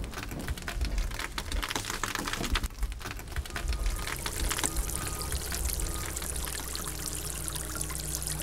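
Water trickling and dripping from a steam locomotive's pipes, with crackling from a freshly lit wood fire in the firebox and a steady low hum underneath. The crackles are dense in the first half and give way to a steadier hiss.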